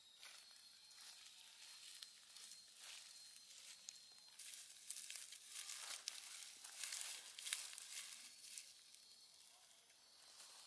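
Dry fallen leaves rustling and crackling underfoot as a macaque forages through leaf litter. The crackles come in faint scattered bursts, busiest from about five to eight seconds in.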